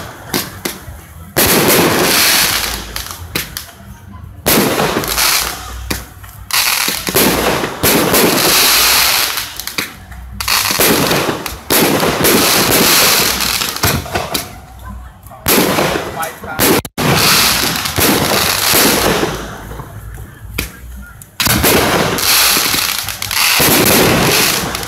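Fireworks display going off: a series of loud bursts, each lasting a second or two, with short quieter gaps between them.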